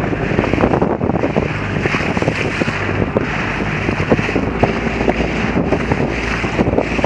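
Wind buffeting the microphone, with water splashing and slapping around a boat.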